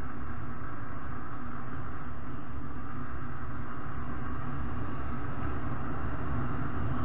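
Motorcycle engine running steadily at cruising speed, around 90 km/h, with wind rushing over the handlebar-mounted microphone.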